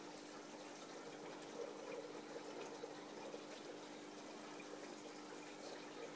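Aquarium water bubbling from the tank's aeration, faint and steady, over a constant low hum from the pump.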